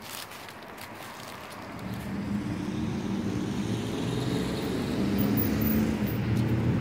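A low engine drone fades in about two seconds in, grows louder, then holds steady.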